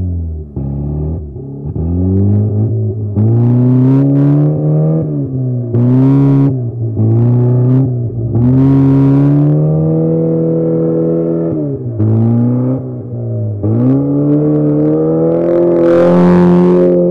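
Race car engines revving high and dropping back again and again as the cars accelerate past. Near the end a louder rush of noise comes as one car passes very close.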